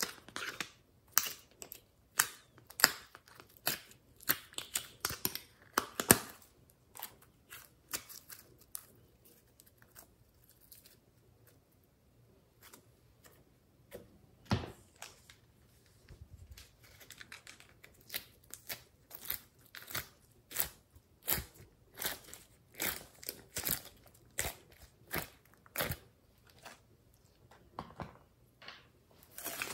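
Hand-worked slime mixed with soft clay, giving sticky crackling and popping clicks as it is pressed, squeezed and pulled apart. The clicks come in quick clusters, thinning out in the middle stretch and picking up again toward the end.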